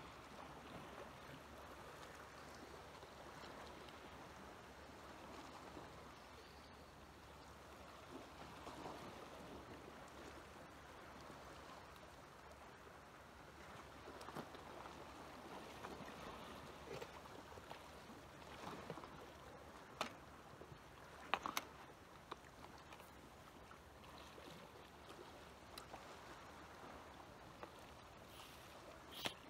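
Faint, steady lapping of calm sea water against shore rocks, with a few soft clicks about two-thirds of the way through.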